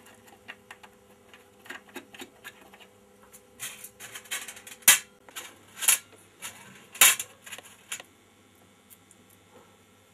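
Hands working on the metal-and-wood case of a 16 mm sound projector's amplifier, fitting screws and parts: scattered clicks and metallic clinks, with a few louder knocks about five, six and seven seconds in.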